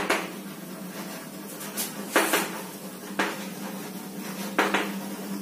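Chalk writing on a blackboard: several short scratchy strokes and taps, spaced irregularly, over a steady low hum.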